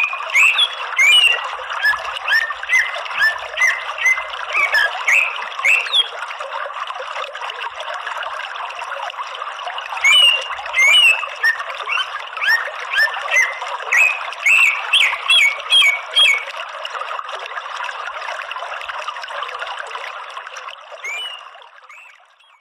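Cucak ijo (green leafbird) calling in two runs of quick, sliding chirps, with one more chirp near the end, over a steady rush of running water. Everything fades out at the very end.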